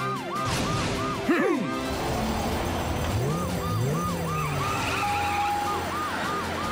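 Cartoon police car siren sounding in short, quickly repeated rising-and-falling whoops over background music, with a quick swooping sound effect about a second in.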